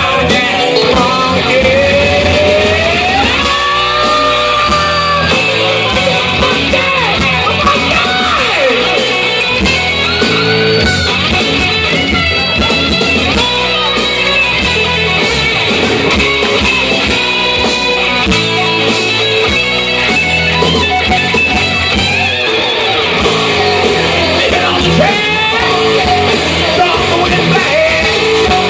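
A man singing karaoke into a microphone over a loud rock backing track with electric guitar, amplified through a bar's PA system.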